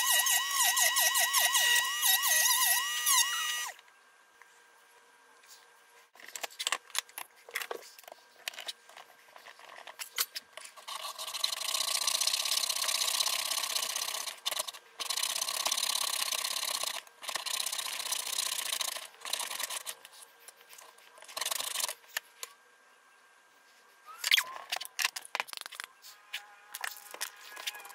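Rotary tool sanding drum whining at a high, wavering pitch as a small wood piece is pressed against it; it stops a few seconds in. After a pause of handling clicks, a hand saw rasps through a stack of glued wood veneer in long stretches of strokes, with more clicks near the end.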